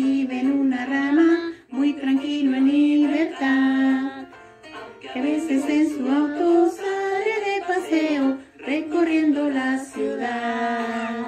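A woman singing a song in separate lines with short breaks, over plucked guitar accompaniment.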